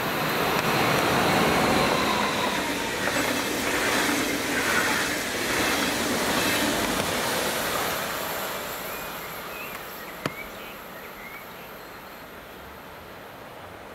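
Electric train passing on the line, its wheel and rail noise building over the first couple of seconds, holding, then dying away after about eight seconds. A single sharp click about ten seconds in.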